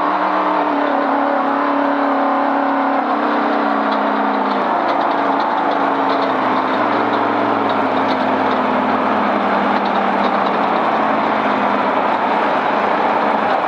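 Vehicle engine running steadily under way, its pitch easing slowly down, over a constant rushing road noise, heard from inside the vehicle.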